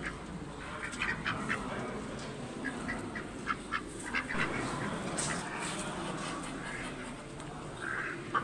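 Domestic ducks quacking in short, repeated calls over a steady background hum of a crowded hall.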